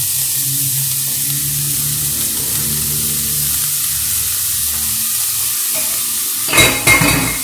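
Diced zucchini tipped into a hot nonstick pan of frying onion, garlic and carrot, over a steady sizzle of oil. A short, louder clatter comes near the end.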